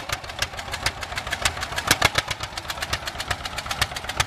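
Vintage John Deere two-cylinder tractor engine running as the tractor drives slowly, its exhaust popping in a rapid, even beat.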